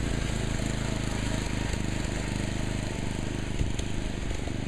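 Small garden-tractor engine of a Sears Custom 7 mud mower running steadily with a pulsing beat as the tractor drives across the lawn.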